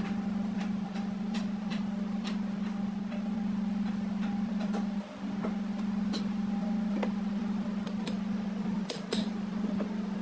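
Small metal engine parts, piston rings, pins and connecting rods, clicking and tapping at irregular intervals as they are handled on a workbench, over a steady low hum.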